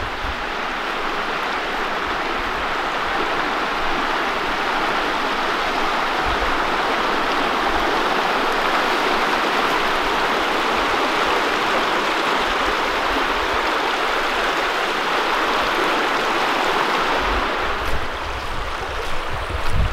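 A fast-running brook rushing over rocks, a steady wash of water noise. Near the end the water sound eases a little and low rumbles of wind on the microphone come in.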